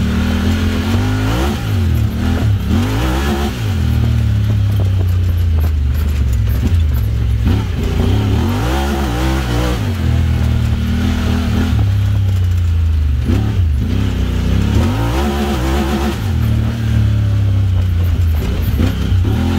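Honda Talon X side-by-side's 999 cc parallel-twin engine running through an aftermarket Evo Performance exhaust, the revs rising and falling several times as the throttle is opened and closed, between stretches of steadier running.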